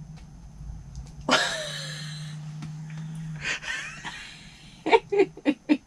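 A person's long, breathy gasp, then a quick run of short laughs near the end, over a steady low hum.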